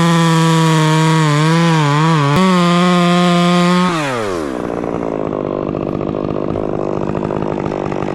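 Gas chainsaw running at full throttle, cutting wood, its pitch wavering briefly as the chain takes load. About four seconds in the throttle is released and the engine drops to idle.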